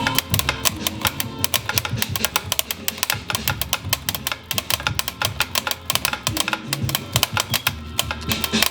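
Music with low sustained notes under a rapid, irregular clacking of typewriter keys.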